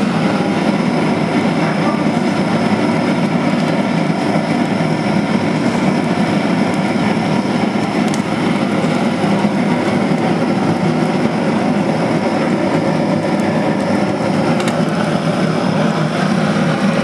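Steady, loud rushing kitchen noise beside a gas-fired al pastor spit, with no clear rhythm, and a couple of faint clicks.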